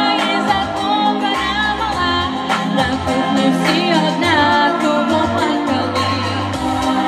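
A woman singing a pop song into a handheld microphone, with a wavering vibrato on held notes. She is backed by music with a steady beat and bass.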